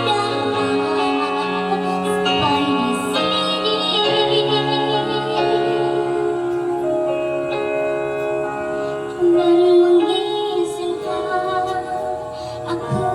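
A woman singing an Indonesian song over sustained instrumental backing, her long held notes wavering with vibrato.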